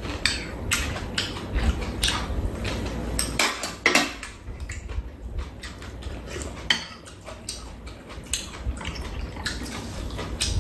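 Metal spoons and chopsticks clinking and scraping against bowls during a meal: a string of sharp, irregular clinks, several close together, some louder than others.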